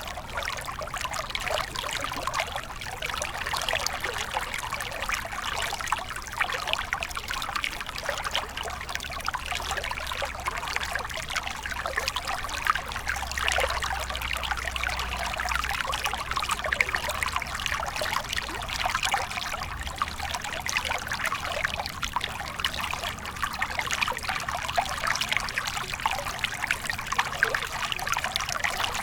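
River water flowing, a steady, even trickling and splashing.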